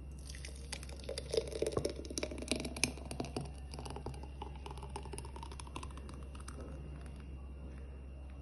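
Thick milkshake poured from a glass blender jug into a glass jar: a quick run of wet, splattering clicks for a few seconds, then a faint tone that rises in pitch as the jar fills.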